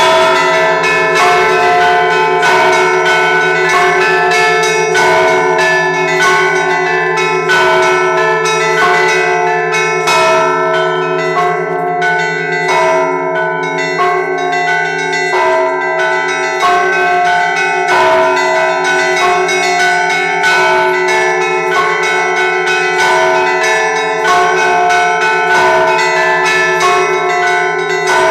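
Orthodox church bells rung in a razgonny zvon, the Russian-style peal that marks the end of the Sunday service: smaller bells struck many times in quick, steady rhythm over the deeper bells ringing on beneath them, with no pause.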